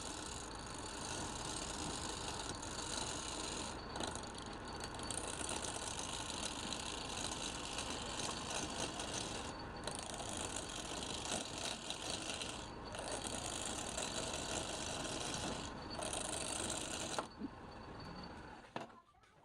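Wood lathe running with a turning tool cutting into the spinning wood: a steady scraping, rasping noise that breaks off briefly every few seconds. The cutting stops about two seconds before the end.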